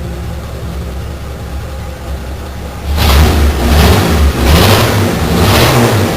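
Willys Rural's 4.1-litre engine idling with a low rumble, then revved in quick throttle blips about once a second from about halfway.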